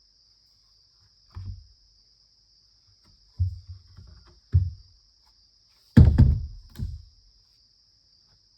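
A handful of dull thuds, five in all, the loudest about six seconds in, over a steady high chirring of crickets.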